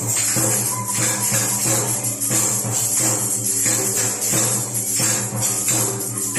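Music: jingling percussion shaken in a steady rhythm over held low notes.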